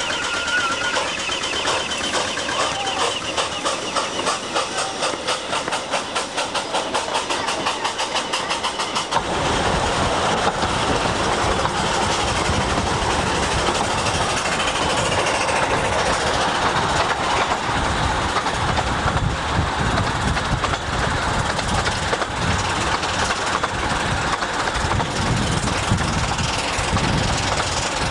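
Ravenglass and Eskdale Railway 15-inch-gauge steam locomotive pulling away, its exhaust beats quickening steadily. About nine seconds in this gives way to the louder, steady rumble of the train running, heard from a carriage behind the engine.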